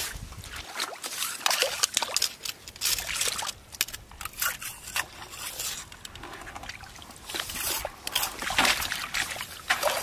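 Shallow muddy seawater splashing and sloshing around rubber boots as they wade and shift through a tide pool: irregular small splashes and trickles.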